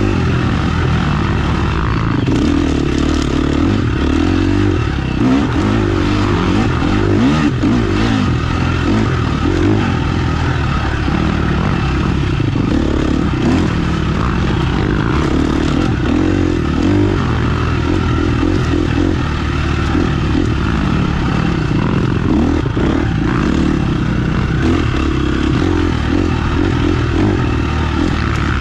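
Motorcycle engine running without a break while being ridden, its revs rising and falling again and again.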